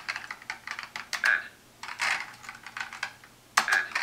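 Typing on a one-handed computer keyboard: quick, irregular plastic key clicks in short runs with brief pauses.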